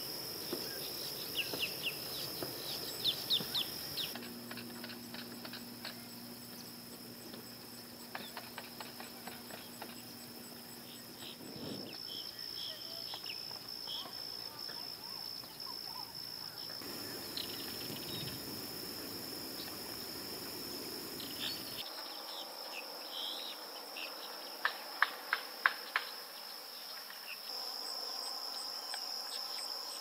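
Insects trilling steadily at a high pitch, with scattered short chirps over them and a quick run of sharp, loud chirps about five seconds before the end.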